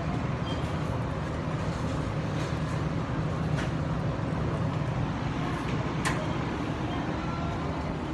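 Steady low machine hum, with a few sharp clicks over it.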